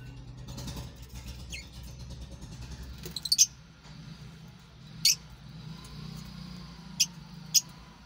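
Fischer's lovebirds giving short, shrill chirps: a quick burst of several about three seconds in, one about five seconds in, and two near the end. A low steady hum runs underneath.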